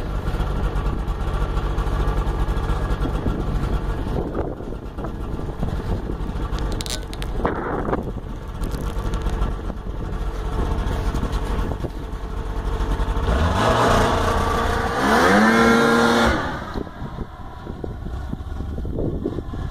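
Ski-Doo Tundra snowmobile engine running under way with the track turning, revving up louder about two-thirds of the way through before easing off again.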